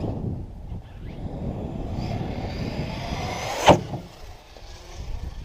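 Arrma Kraton 6S RC monster truck's brushless electric motor whining and rising in pitch over its tyre noise, then a sharp, loud landing impact about 3.7 seconds in.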